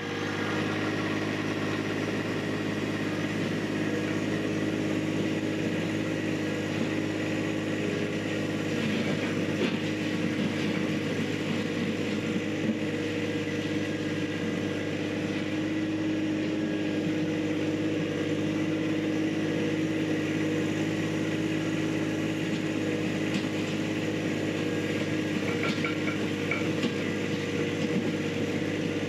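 John Deere 1025R subcompact tractor's three-cylinder diesel engine running at a steady speed as the tractor moves about.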